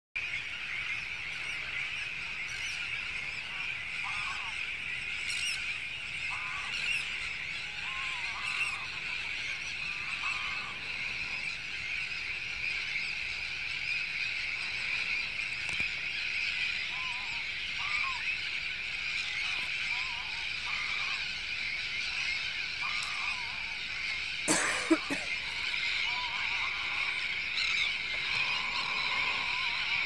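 Waterfowl at a wetland giving short honking calls, one every one to three seconds, over a continuous high-pitched chorus of birds. Two sharp knocks come close together about five seconds before the end.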